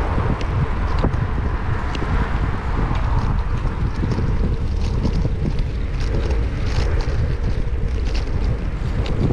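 Wind buffeting a bicycle-mounted GoPro Hero8's microphone while riding, a steady low rumble, with scattered light clicks and rattles.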